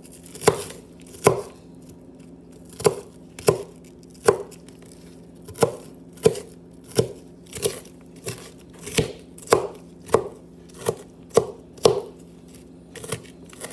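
Kitchen knife chopping an onion on a plastic cutting mat over a wooden board: about twenty crisp, separate knocks of the blade, one or two a second at an uneven pace.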